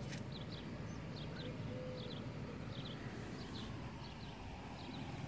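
Small birds chirping, short high chirps coming every fraction of a second, over a steady low hum.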